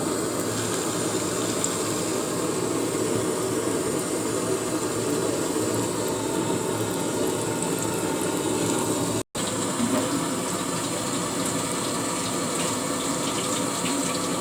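Egg-and-besan batter sizzling steadily as it fries in hot mustard oil in a pan, with a brief cut to silence about nine seconds in.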